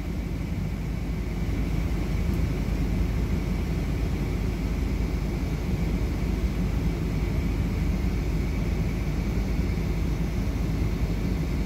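Wind buffeting a phone's microphone: a steady low rumble, with a faint steady high-pitched tone underneath.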